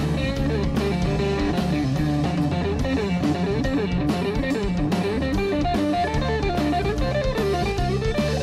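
Rock band playing live: a Stratocaster-style electric guitar picks a quick run of single notes over bass and a drum kit keeping a steady beat.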